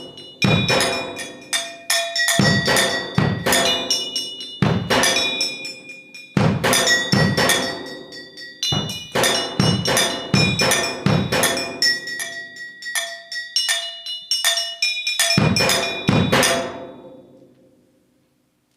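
Solo percussion on struck metal objects, ringing with several clear pitches over low drum thuds, played in quick irregular clusters of strikes. The last cluster comes about sixteen seconds in and rings away to silence.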